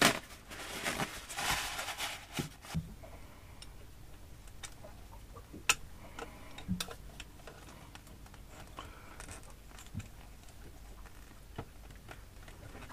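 Scattered small metallic clicks and taps of pliers working inside a marine generator's raw-water pump to pull out the old impeller, after a short paper rustle at the start.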